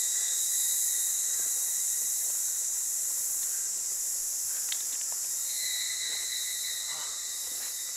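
Steady high-pitched chorus of forest insects, with a thinner, purer insect note standing out for about a second and a half past the middle.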